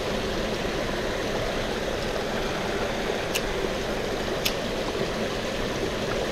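Steady rush of running water in a small stream. Two short, sharp clicks come about a second apart midway through.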